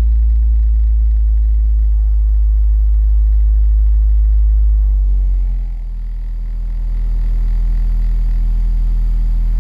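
Car audio subwoofers playing a loud, steady, very deep bass tone that changes to another note and gets somewhat quieter about five and a half seconds in.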